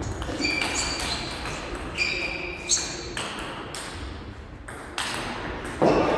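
Table tennis ball being struck back and forth by bats and bouncing on the table during a rally: a run of sharp clicks and pings, some with a short high ring. A louder, fuller noise comes in near the end.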